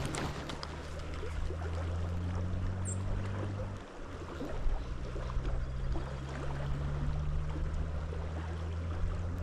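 Creek water running steadily, with a low steady hum underneath that drops out briefly about four seconds in.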